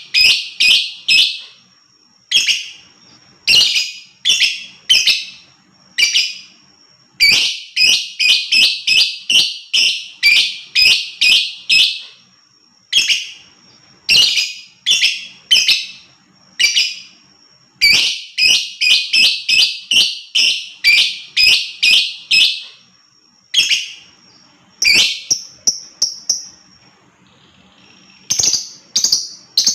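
Lovebird giving runs of shrill, sharp chirps in quick succession, several calls to a run, with short pauses between the runs.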